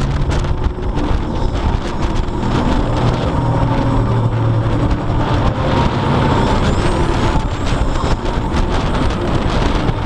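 TRON Lightcycle Power Run coaster train running along its track: a loud, steady rush of wheel and wind noise with rapid rattling.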